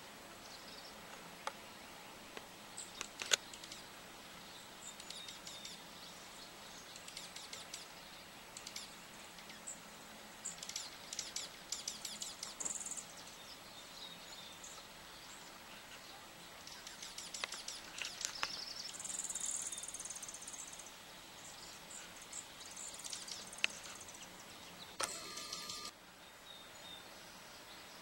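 Small songbirds chirping and giving fast, high trills in several short bursts over a steady outdoor hiss. There are a few sharp clicks, the loudest about three seconds in, and a brief burst of noise near the end.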